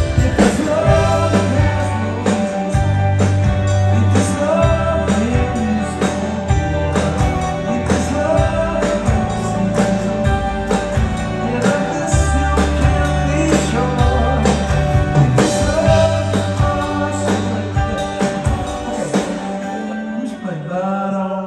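Live amplified band music with a steady drum beat and a strong bass line, played at a sound check; it stops at the very end.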